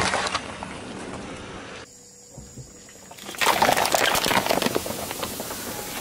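A car tyre rolling over and squashing a watermelon, with wet crunching at the start. After a cut, about three and a half seconds in, a car tyre crushes bottles of fizzy drink: dense crackling and crunching with spraying, fizzing soda.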